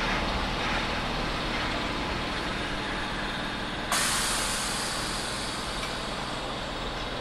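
Electric multiple unit rumbling slowly to a stop. About four seconds in, a sudden loud hiss of air bursts out and slowly fades: the train's air brakes exhausting as it halts.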